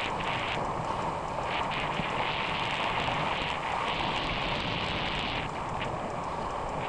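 Steady wind buffeting the microphone over a rush of water along a kayak's hull as a power kite tows it across choppy water.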